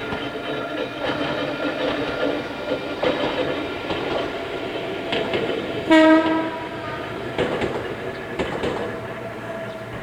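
Ohmi Railway Moha 220-series electric train running past, its old nose-suspended traction motors whining steadily while the wheels clack over rail joints. A short horn blast sounds about six seconds in, and the train fades near the end.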